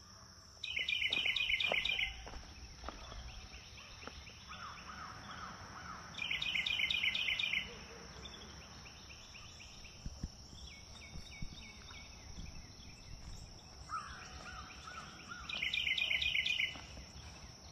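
Woodland birdsong: a songbird sings a short, rapid trill of repeated notes three times, with softer, lower calls from another bird in between, over a steady high-pitched tone.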